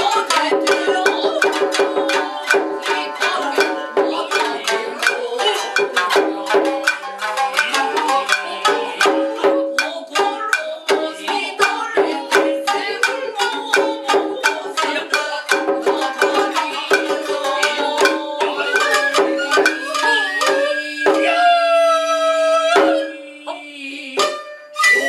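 Nagauta ensemble music with shamisen and Japanese drums (shime-daiko, ōtsuzumi, kotsuzumi) striking in a fast, dense rhythm, with voices singing held notes at the start. Near the end a bamboo transverse flute plays long held notes.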